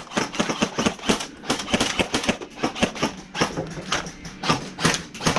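Airsoft gunfire in a firefight: a rapid, irregular run of sharp clicks and cracks from guns firing and BBs striking cover.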